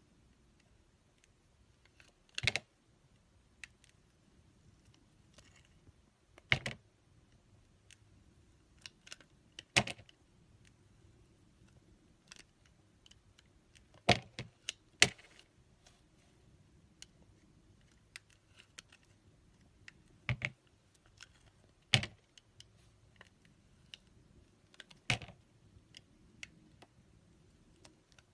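Slime being worked by hand, with sharp pops and clicks from trapped air every few seconds and faint crackling in between.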